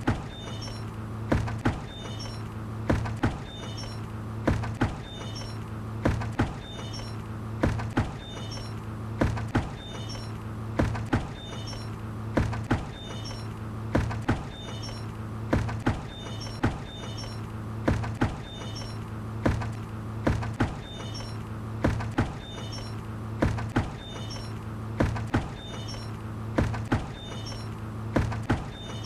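A hanging bucket knocking in a steady rhythm, about once every one and a half seconds, each knock followed by a short ringing, over a steady low hum.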